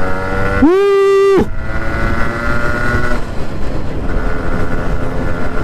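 Yamaha RX 100's 100 cc two-stroke single-cylinder engine running while the bike is pulled hard at highway speed, with a steady rush of wind and road noise. About a second in, a loud held tone rises, stays level for under a second and drops away.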